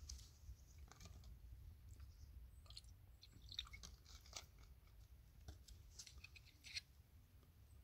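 Faint scattered clicks and light scrapes of a glass sparkling-water bottle being handled and its cap worked open, over a low steady rumble.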